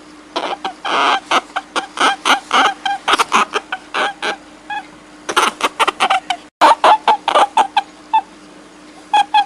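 Rapid series of short, pitched animal calls, bunched in quick runs with brief pauses, cutting out completely for an instant a little past halfway.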